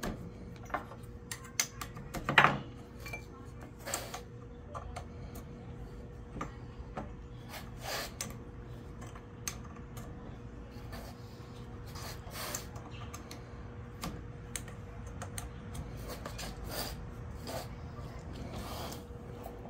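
Copper tubing and brass fittings being handled and fitted together: scattered metallic clinks, taps and rubbing, the loudest a scrape about two seconds in, over a faint steady hum.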